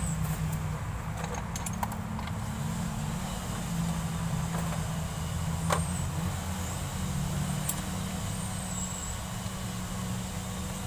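Mitsubishi Montero engine running at a steady idle, a low even rumble, with a light click about six seconds in.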